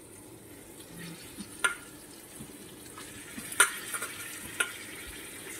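Raw mutton pieces being dropped by hand into a steel kadai of hot fried masala, over a steady frying hiss, with a few sharp clicks and taps as the pieces land; the loudest comes about halfway through.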